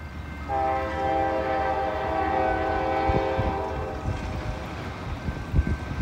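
Air horn of an approaching diesel freight locomotive, the lead CSX SD40-2, sounding one long chord of several tones. It starts about half a second in and stops about four seconds in, over a low rumble.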